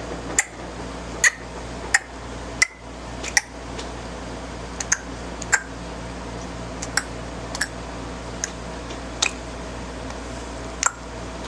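A young child's tongue clicks, made by snapping the tongue off the roof of the mouth: about fifteen sharp single clicks at an uneven pace, some in quick pairs, over a steady low hum.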